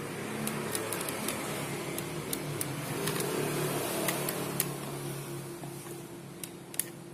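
A steady low mechanical hum with a few faint held tones, swelling over the first few seconds and fading toward the end, with scattered light clicks.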